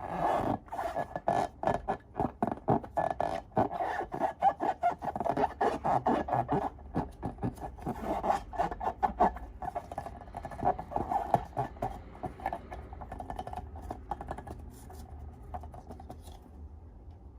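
Close-up handling of slime-making materials: a fast, dense run of crackling and scraping that starts suddenly, then thins out and fades near the end.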